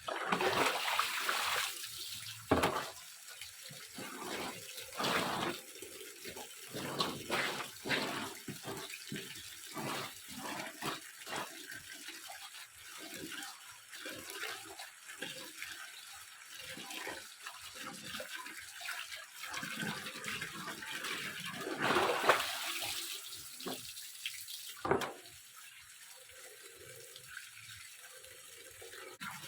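Water running and splashing unevenly, with many short bursts and a few louder splashes about two and a half seconds in and near the end.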